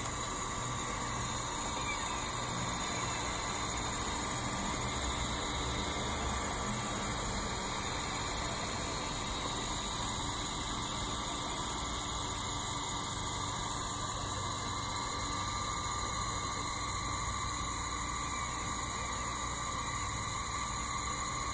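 Homemade diode laser engraver running a rotary engraving job: a steady hum with several high whining tones from its stepper motors, including the Nema 17 driving the turntable, and the laser module's cooling fan.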